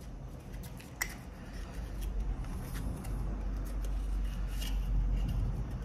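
Small paper-and-plastic razor-blade packets being handled: light rustling with a few small clicks, the sharpest about a second in.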